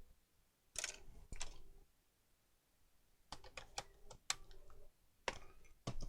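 Irregular sharp plastic clicks and taps as a laptop is handled: a pair about a second in, then quick runs of clicks later on.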